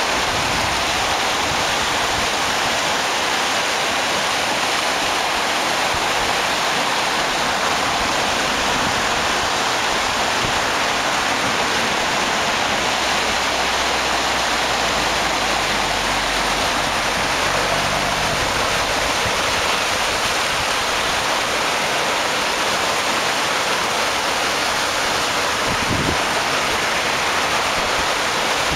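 Floodwater in a creek swollen by heavy rain, rushing and churning in fast muddy rapids: a loud, steady, unbroken rush of turbulent water.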